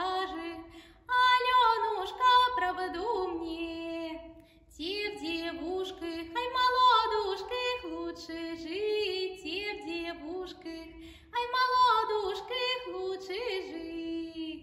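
A woman's solo unaccompanied voice singing a Russian folk song, in long sung phrases broken by short breaths about a second in, around four and a half seconds in, and near eleven and a half seconds.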